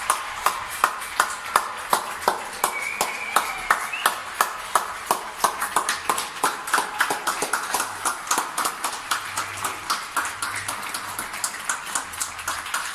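One person clapping steadily, about three claps a second, with fainter applause from other people farther off.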